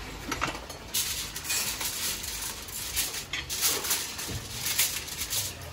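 A sheet of aluminium foil crinkling and rustling unevenly as it is folded by hand around a fish, starting about a second in.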